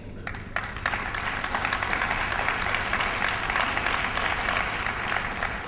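Audience applauding, the clapping building up about half a second in and easing off near the end.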